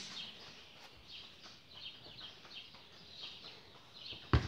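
Birds chirping: a run of short, high chirps, each falling slightly in pitch, repeating through the whole stretch. A single loud thump stands out about four seconds in.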